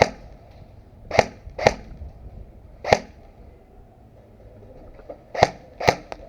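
Airsoft guns firing single shots: six sharp cracks at irregular spacing, two of them coming in quick pairs.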